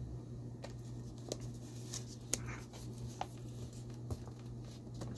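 Quiet room tone: a steady low hum with a handful of faint, brief clicks and rustles scattered through it.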